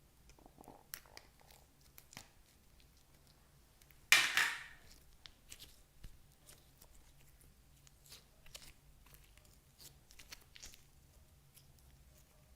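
Light handling noises: scattered small clicks and taps, with one louder, short crackling burst about four seconds in that fades quickly.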